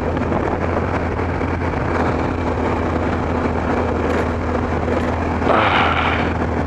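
Kawasaki ZX-12R inline-four engine running steadily under way, with wind and road noise on a helmet camera. About five and a half seconds in, a brief louder hissing surge lasts under a second.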